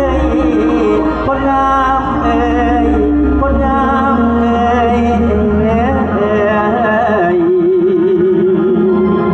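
Live Isan folk music played loud over a PA system: wavering melody lines over a low bass drone that drops out about four seconds in.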